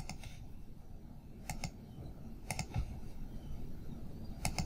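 Computer mouse clicking three times, each click a quick pair of sharp ticks, over a low background hum.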